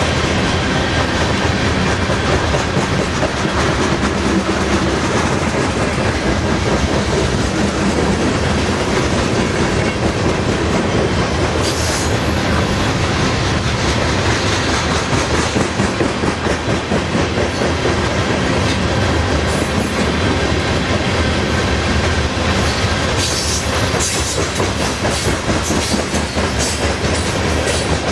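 Coal train hopper cars rolling past at close range: a steady, loud rumble of steel wheels on rail, with a few brief sharp high sounds about halfway through and again near the end.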